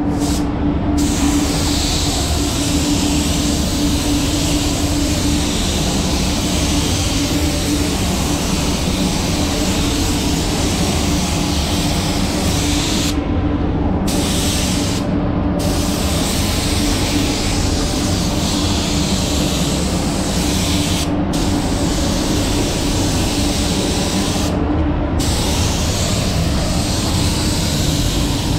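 Gravity-feed spray gun, a Sata 5000 Phaser RP at two bar, spraying water-based base coat: a steady hiss of air and paint, briefly cut off four times as the trigger is released between passes. A steady spray-booth ventilation hum runs underneath.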